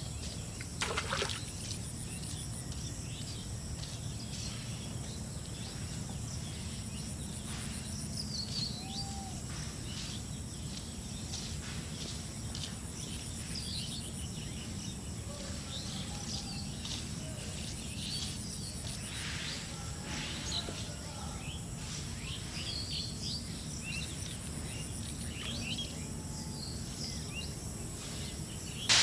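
Outdoor ambience of scattered bird chirps and high insect trills over a steady low rumble, with a brief louder noise about a second in.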